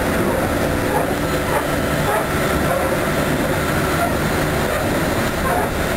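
Keikyu 2100-series electric train running at about 120 km/h: a steady mix of wheel-on-rail running noise and traction-motor hum, heard from inside the cab, with faint steady tones through it.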